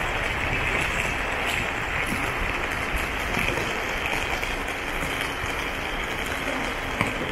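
Steady hiss of heavy rain, with a single sharp tap near the end.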